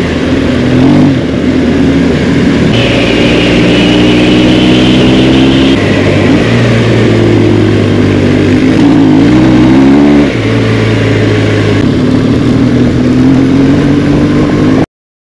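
Motorcycle engine running under way, its pitch dipping and climbing a few times as the throttle opens and closes. The sound cuts off suddenly near the end.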